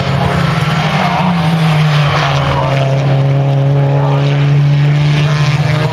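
GT race car engines running at speed, a steady droning engine note that drops a little in pitch about a second in and then holds.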